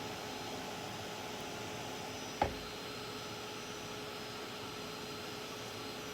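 Craft heat tool blowing with a steady hiss and a faint hum, drying crackle paste so it cracks. A single knock about two and a half seconds in.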